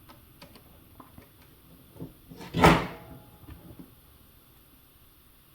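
Light clicks and taps of small RC track parts and tools being handled, with one louder, brief clatter about two and a half seconds in.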